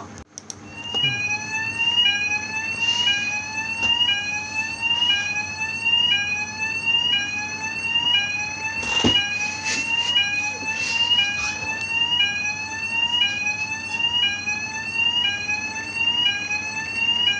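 Fire alarm sounding: a whooping tone that rises in pitch, sweeps up about once a second, and repeats steadily. It starts about a second in, and a few short clicks come through around the middle.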